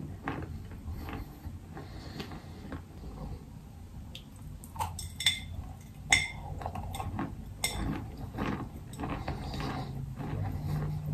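A person biting and chewing a block of clay chalk (Belogorsk chalk mixed with Cambrian clay). There are sharp crunching snaps from the bites, loudest about five, six and nearly eight seconds in, with quieter chewing crunches between them.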